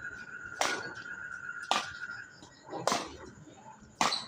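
Four sharp slaps or smacks, evenly spaced about a second apart, over a steady high-pitched whine that stops about two seconds in.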